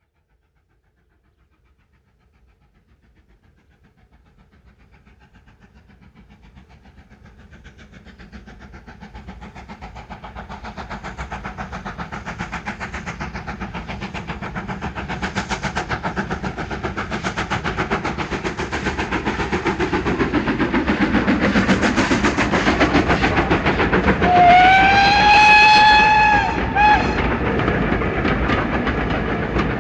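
Steam train approaching from silence, its rhythmic running growing steadily louder, then its steam whistle sounds for about two seconds, followed by a short second toot.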